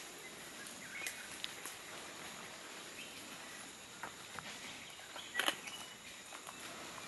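Rainforest floor ambience: a steady high insect hiss, with scattered crackles and snaps in dry leaf litter, the loudest cluster about five and a half seconds in, and a couple of faint short chirps.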